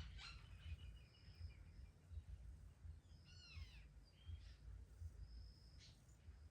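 Faint bird chirps: a few short, falling calls about three seconds in and several brief high notes scattered through, over a steady low rumble.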